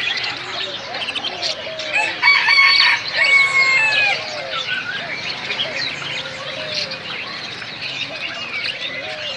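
Many caged birds chirping and calling over one another. About two seconds in, one bird gives a loud, drawn-out call lasting about two seconds, broken once in the middle.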